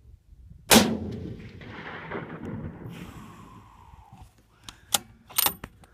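A single rifle shot from a Remington 700 in .308, followed by a long rolling echo that fades over about three seconds. Near the end come two sharp clicks.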